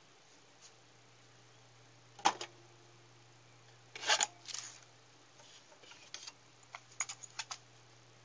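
Plastic clicks and clatter from a Roadstar RCR 4516 CD/cassette boombox being handled: one sharp click about two seconds in as the CD lid opens, a louder clatter about four seconds in as a cassette is taken from the open cassette deck, then a run of lighter clicks, over a faint steady hum.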